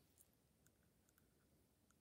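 Near silence: room tone with a few faint, scattered small clicks.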